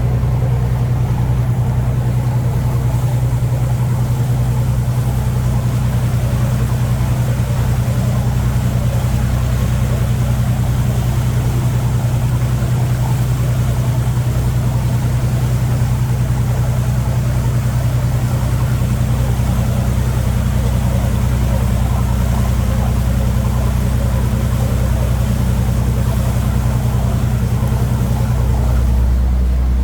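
Fishing boat's engine running steadily with a low hum; near the end its tone shifts lower.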